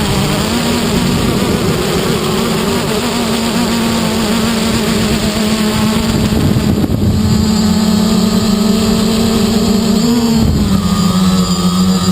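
Quadcopter motors and propellers buzzing steadily in flight, heard from a camera mounted on the craft, with wind noise over the microphone. The pitch dips briefly about ten seconds in as the throttle changes.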